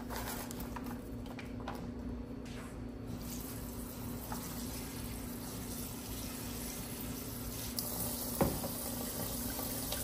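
Kitchen faucet running a stream of cold water into a bowl of frozen shrimp in the sink, filling the bowl to thaw them; the steady rush starts about three seconds in. Before that, a few light knocks as the frozen shrimp are tipped from the bag into the bowl, and one sharp click near the end.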